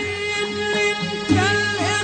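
Classical Egyptian orchestral music in maqam sikah, from a 1964 recording. The ensemble holds steady notes over a low beat, and about halfway through a wavering, bending melody line comes in.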